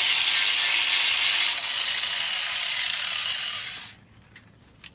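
Angle grinder grinding the steel of a railroad rail, a loud steady hiss that drops a little about a second and a half in and dies away about four seconds in, followed by a few faint clicks.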